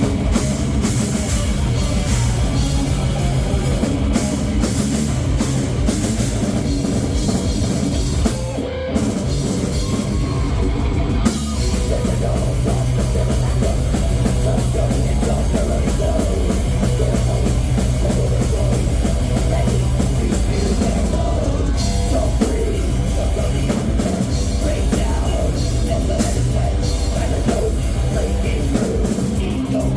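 Heavy metal band playing live, with electric guitars and a drum kit pounding through dense, loud music. The music thins out briefly about nine seconds in, then the full band comes back in about two seconds later.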